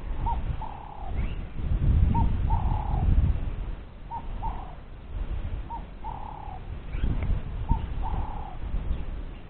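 A dove cooing: a short note followed by a longer, lower-held coo, the pair repeated about every two seconds, over an uneven low rumble of wind on the microphone.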